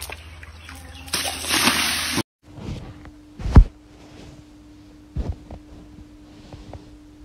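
A husky sloshing water in a tub, a burst of splashing about a second in. After a cut comes one loud thump, the loudest sound, and a smaller one later, over a faint steady hum.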